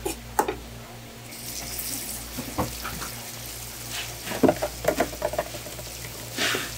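Water spraying from a hose nozzle onto freshly cut sea cucumbers on a wooden cutting board, a steady hiss starting about a second in. Scattered knocks come as the sea cucumbers are handled on the board.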